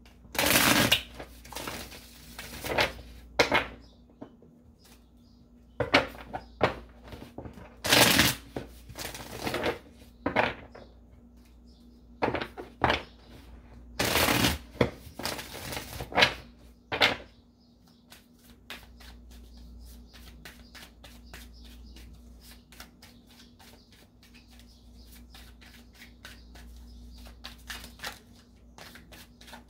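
A deck of tarot cards being shuffled by hand. For the first seventeen seconds or so it comes as a string of loud swishing bursts a second or two apart. After that it turns into a long run of soft, rapid card flicks.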